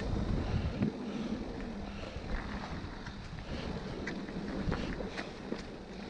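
Mountain bike rolling slowly over a dirt and dry-leaf trail: tyre noise with scattered small clicks and rattles from the bike, over a low wind rumble on the microphone that eases about a second in.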